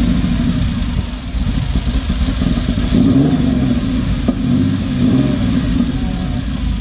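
Porsche 911 Turbo's flat-six engine running after a hard start, its pitch rising and falling a few times as it is revved lightly.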